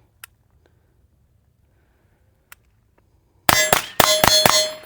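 AR-15 rifle firing four or five quick shots about a quarter second apart, starting about three and a half seconds in, with a metallic ringing that fades near the end.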